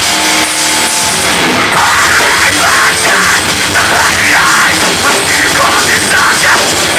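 Metal band playing live, loud: distorted electric guitars, bass and drums, with a vocalist's harsh screamed vocal coming in about a second and a half in.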